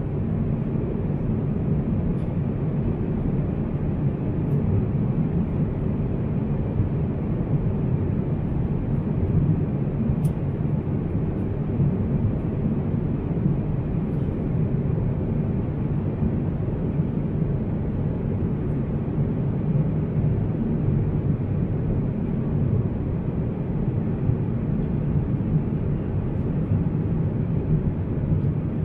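Steady low rumble of an Airbus A350-900 airliner cabin at cruise, the airflow and engine noise heard from inside the cabin, with a few faint clicks.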